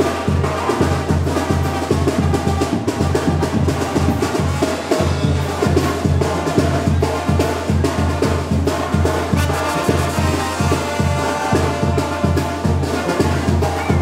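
Band music with brass and a steady, evenly repeating drum beat.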